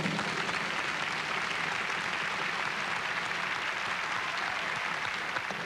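Studio audience applauding steadily as the wheel is spun, easing off slightly near the end.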